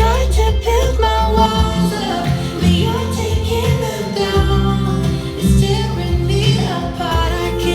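Recorded song playing, a singing voice over guitar and a heavy bass line.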